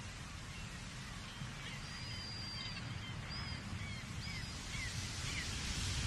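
Many seagulls calling from afar in short, high cries over a steady low rumble of wind and surf from the sea below. The rumble and hiss swell near the end.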